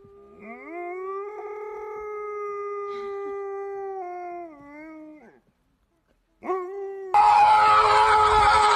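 A husky-type dog howling: one long howl held at a steady pitch for about five seconds and falling at its end, then after a short pause the rising start of a second howl. Near the end a louder noisy sound cuts in abruptly.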